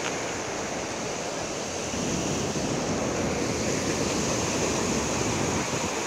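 Steady rush of river rapids and a small waterfall, with wind buffeting the microphone. It gets louder and rougher from about two seconds in.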